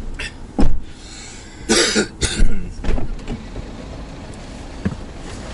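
A heavy thump about half a second in, then a couple of short scuffing bursts, as passengers climb into the back seat of a car and settle in.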